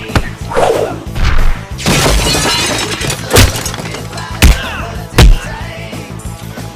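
Dubbed fight-scene sound effects over action music: a string of sharp hits and impacts, about five in all, with a longer crash like something shattering about two seconds in.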